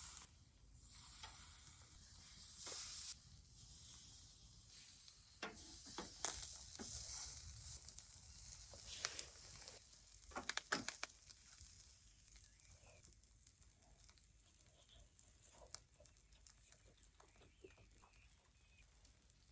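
Food sizzling as it cooks, a steady hiss with scattered sharp clicks and knocks through the middle, growing fainter toward the end.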